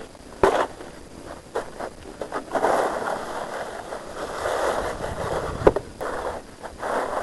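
Snow being cleared by hand: repeated scraping strokes through snow, each swelling and fading over about a second, with two sharp knocks, one near the start and one about two-thirds of the way through.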